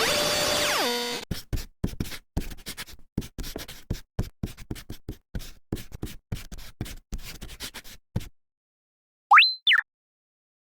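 Cartoon sound effects: a short falling tone in steps, then a run of quick, irregular clicks and knocks for about seven seconds, a pause, and near the end a brief whistle-like tone that rises, holds and falls.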